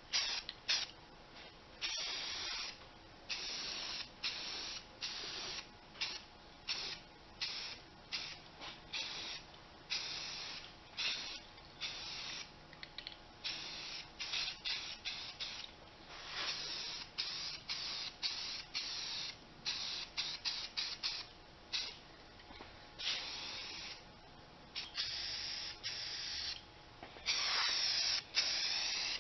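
Aerosol spray-paint can hissing in many short bursts and a few longer passes of a second or two, as the first colour coat goes on over primer.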